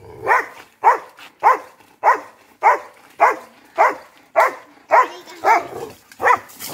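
Doberman barking in a steady, regular run, about eleven sharp barks, a little under two a second.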